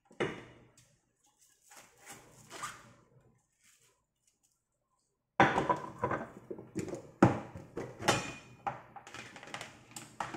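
Kitchen handling sounds on a wooden cutting board: a sharp knock at the start, some softer scraping and knocking, then a busy run of knocks and clatter from about five seconds in as a cleaver and a plastic food container are handled.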